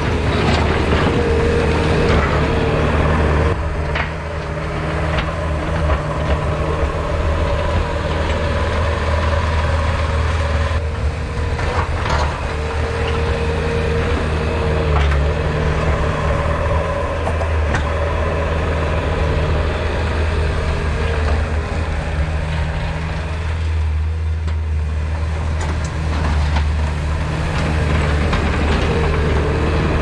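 Bobcat compact track loader's diesel engine running steadily under load while it pushes snow with a plow. A faint higher whine sits above the engine and breaks off now and then, and there are a few short knocks.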